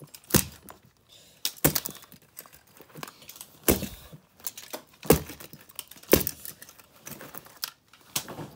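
Plastic housing and tape mechanism of a vintage Sony cassette player being pried and torn apart by hand: a run of irregular sharp cracks and snaps with smaller clicks and rattles of loose parts between them.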